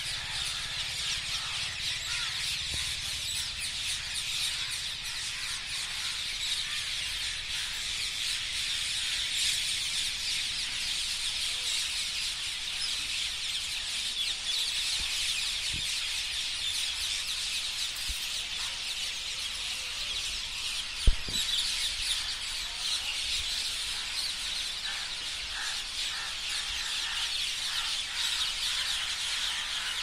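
A dense, continuous chorus of many birds calling and chattering together as they gather in a roost tree. A single sharp thump stands out about two-thirds of the way through.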